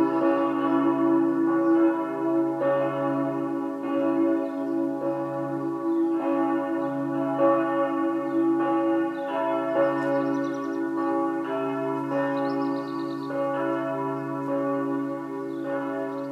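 Church bells of the Peterskirche ringing, irregular overlapping strokes about once a second over a continuous ringing hum, growing slowly fainter toward the end.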